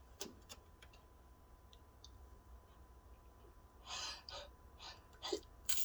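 A person's breathing catching as a sneeze builds, set off by a grass stalk tickling the nose: a few faint sniffs, a sharp breathy inhale about four seconds in, short hitching breaths, then a sneeze bursting out at the very end.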